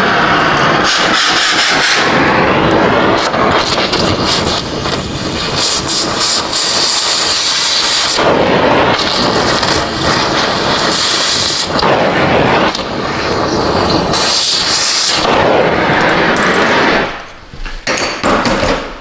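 Gas torch flame hissing loudly, with crackling pops, as it heats a rusted, seized exhaust flange bolt and nut to red heat. The flame cuts off near the end.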